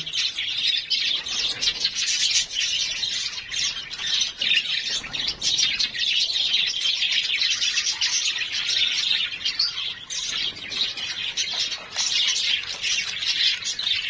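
A flock of budgerigars chattering and chirping without a break, many calls overlapping.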